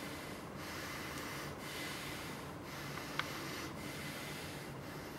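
Quiet room tone: a steady faint hiss, with one small click about three seconds in.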